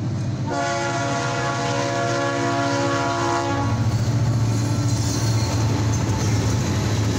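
Lead freight locomotive's multi-chime air horn sounding one long blast for the grade crossing, from about half a second in until about three and a half seconds in. Then the diesel locomotives run close past with a heavy low engine drone and rolling noise from the train.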